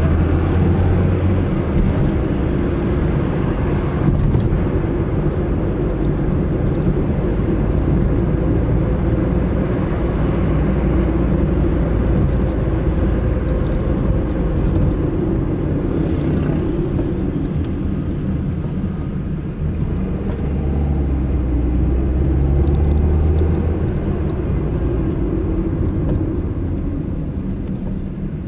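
Car driving on city streets: steady engine and road rumble, with the low rumble swelling for a few seconds about two-thirds of the way through.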